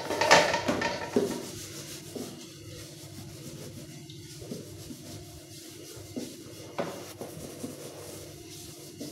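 Stainless steel pot clattering against the dishes in a metal sink at the start, then a sponge scrubbing the pot by hand, with a sharp metal knock near seven seconds.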